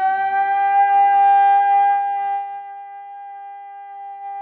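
A man's voice holding one long, steady high sung note alone, with no accompaniment, growing softer after about two seconds.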